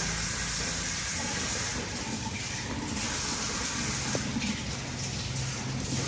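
Kitchen tap running steadily into a sink.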